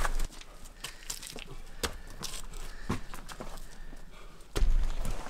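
Footsteps on a mountain trail: irregular crunching steps about once a second, with a low rumble coming in near the end.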